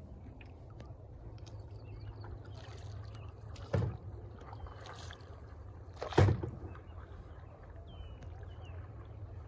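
Canoe paddle strokes from the canoe being filmed in: two sharp splash-and-thump strokes about two and a half seconds apart, over a steady low rush of water and wind.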